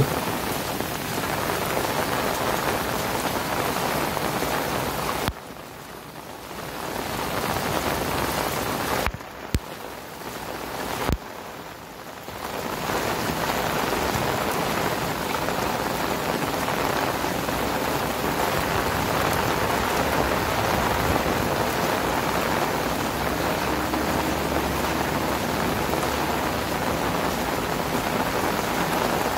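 Heavy rain pouring steadily onto grass, puddles and paths. The sound dips sharply a few times between about five and thirteen seconds in, then comes back.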